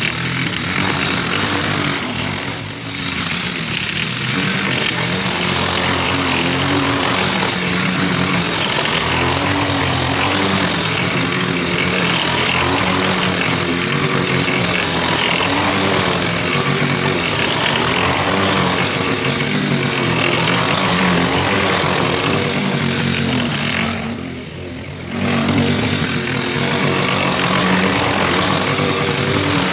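Gasoline lawn mower engine running steadily while cutting grass, its pitch wavering slightly with the load. The sound drops away briefly twice, once near the start and once near the end.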